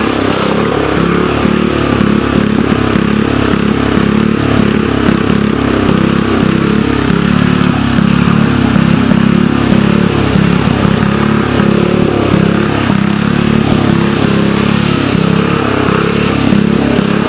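Riding lawn mower engine running hard while the mower is driven through a course, its pitch rising and falling as the throttle and load change.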